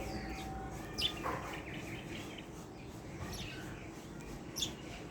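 Wild birds calling: two short, sharp chirps, about a second in and near the end, with softer twittering between, over a steady background hiss.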